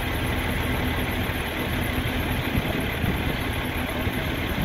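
Crane truck's engine running steadily.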